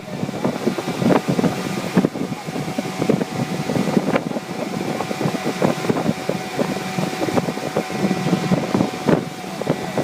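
Mariner 15 hp outboard motor running steadily under way, pushing a jon boat, with frequent short irregular thumps and wind on the microphone.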